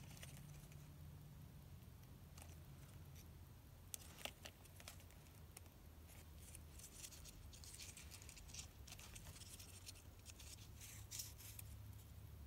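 Faint handling of paper strips: quiet rustles and small clicks as glued paper loops are pressed and fitted together by hand, over a low steady room hum.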